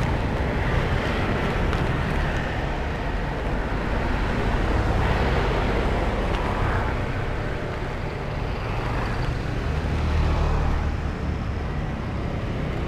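Street traffic: motorbikes and cars passing on the road, a steady low rumble that swells a little as vehicles go by.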